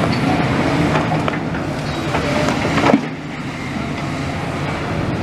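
Heavy demolition machine's diesel engine running steadily, with a single sharp knock about three seconds in.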